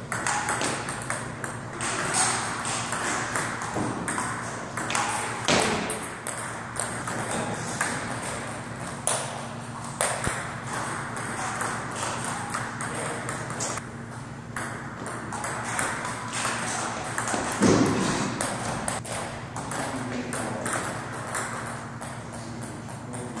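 Table tennis rally: the ball clicking back and forth off the rubber paddles and the table in a quick, irregular run of sharp taps, over a steady low hum.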